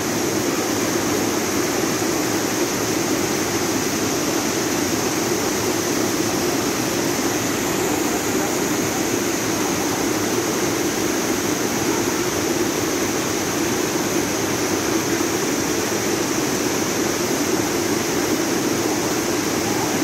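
Small waterfall pouring steadily over granite boulders into a rock pool: a constant, even rush of falling water.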